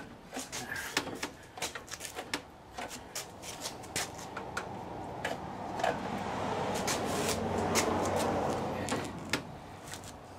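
Clicks, knocks and rattles of hands working the throttle and shift linkage on an outboard motor's powerhead, with a longer scraping, rubbing noise that swells and fades in the second half.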